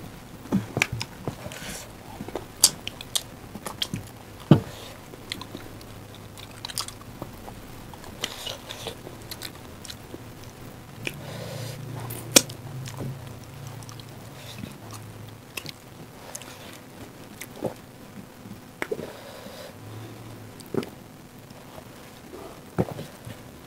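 Close-up eating sounds of rice, dal and chicken gravy eaten by hand: chewing and mouth sounds, broken by scattered sharp clicks and smacks.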